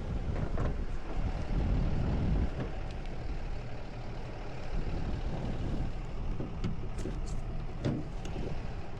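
Tow truck's engine running steadily, with a few light clicks near the end.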